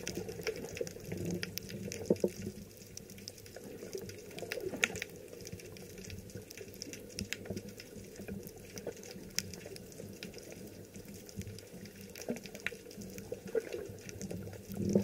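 Seawater sloshing and gurgling around a camera held just under the surface, heard underwater, with many scattered sharp clicks and crackles.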